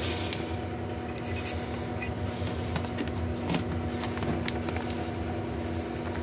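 Light rustling, scraping and small ticks of a comic book's paper pages and cover being handled, over a steady low electrical hum.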